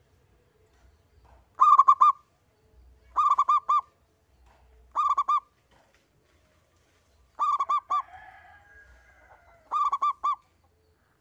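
Zebra dove (perkutut) cooing: five short phrases about two seconds apart, each a quick run of three or four notes. A fainter wavering sound trails after the fourth phrase.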